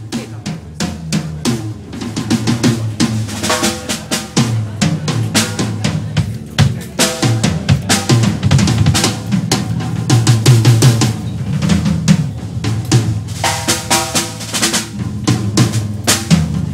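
Rock band playing live: a drum kit with rapid snare and bass drum hits, including rolls, over electric guitar through a guitar amp.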